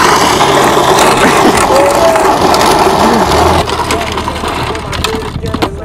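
Hard plastic wheels of a Kawasaki toy ride-on ATV, towed on a strap, grinding and rattling over asphalt. The rough noise eases off a little after about three and a half seconds, leaving scattered clicks and knocks.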